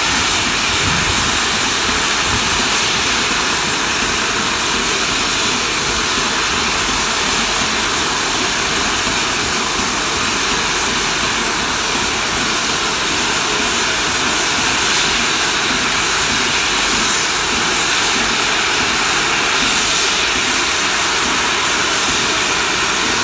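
LMS Royal Scot class 4-6-0 steam locomotive No. 46100 standing with its safety valves blowing off: a loud, steady roar of escaping steam, the sign of a boiler at full working pressure.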